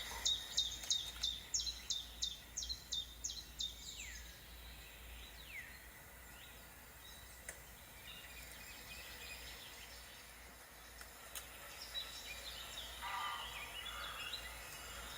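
A bird sings a fast run of about a dozen high, sharply falling notes, roughly three a second. It follows with two slower falling whistles, and more birds call softly near the end.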